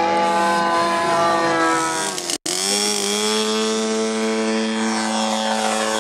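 Engine of a large radio-controlled model tow plane running steadily at high power, towing a model glider off the grass for take-off. The sound breaks off for an instant a little before halfway, then settles back to a steady pitch.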